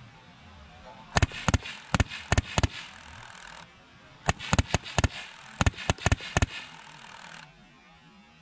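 Two bursts of rapid small-calibre shots in the scale tank battle, each a quick run of about seven or eight sharp cracks, with a hissing mechanical whirr under each burst.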